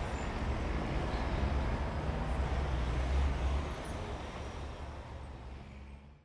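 City street traffic noise, a steady low rumble, fading out over the last two or three seconds.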